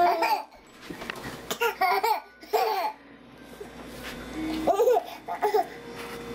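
Infant twins laughing and babbling in short high-pitched bursts: once at the start, a cluster about a second and a half in, and again about five seconds in.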